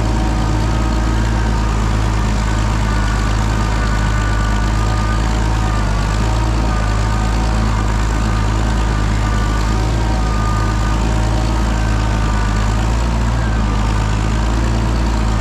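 Oliver 77 tractor's six-cylinder engine running steadily.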